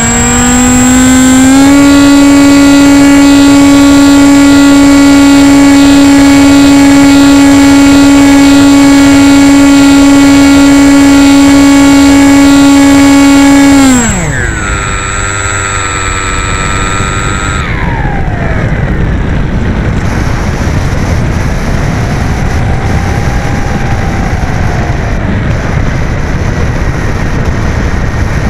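AXN RC plane's electric motor and propeller, heard from the onboard camera. The motor winds up over the first couple of seconds and holds a steady high pitch. About halfway through the throttle is cut and the pitch falls away, leaving wind rushing over the airframe as the plane glides.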